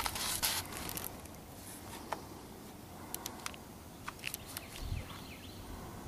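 Footsteps on dry ground, with scattered sharp clicks and snaps, a short rustle at the start, and a soft low thump of a step about five seconds in.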